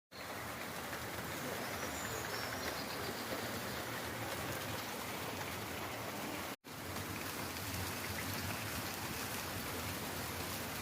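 Steady rain falling, an even hiss of drops with no letup, broken by a split-second gap about six and a half seconds in.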